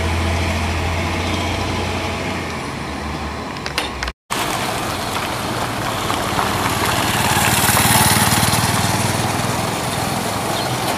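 Heavy logging trucks' diesel engines running on a gravel road. First a steady low hum as a loaded truck pulls away, then the sound drops out briefly about four seconds in. After that, another log-laden truck's engine and tyre noise grow louder as it approaches, loudest about eight seconds in.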